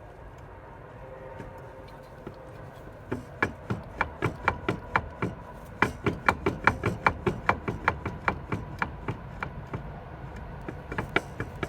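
Flywheel and clutch basket of a ZAZ Slavuta engine rocked by hand, knocking metal on metal about three times a second, each knock with a short ring. The flywheel has play on the crankshaft, which the owner later puts down to a cracked crankshaft.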